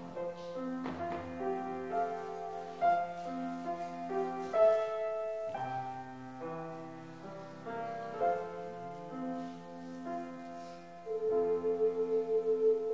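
Ocarinas playing a slow hymn tune in several parts, mostly in long held notes.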